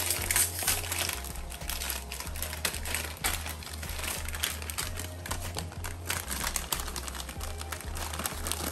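Plastic instant-noodle packets and foil seasoning sachets crinkling and rustling as they are handled, a dense run of small irregular crackles.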